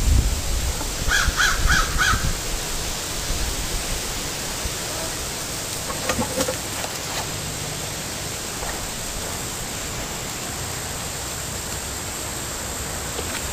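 A crow cawing four times in quick succession about a second in, over a steady outdoor hiss with some wind rumble on the microphone at the start.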